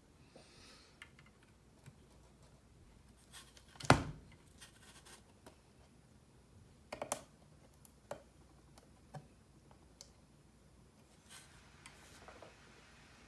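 Small clicks and scrapes of mechanical keyboard parts being handled during assembly, with one louder knock about four seconds in and a quick run of clicks around seven seconds.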